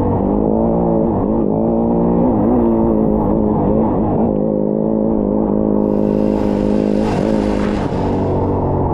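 Yamaha off-road motorcycle engine running at fairly steady revs, its pitch dipping and wavering briefly several times in the first few seconds as the throttle is eased and reopened. From about six seconds in, a rush of higher noise is added on top of the engine.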